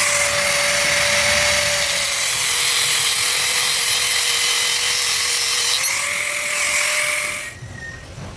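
Electric grinder running against the steel of a car suspension spring, a loud hiss with a steady motor whine. The whine sags under load for a few seconds, recovers, and the tool cuts off abruptly near the end.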